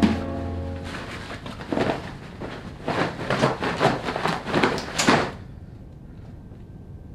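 Clothing being rummaged through and flung about: a quick run of irregular rustles and knocks for about three and a half seconds, stopping suddenly, after a sharp knock at the very start.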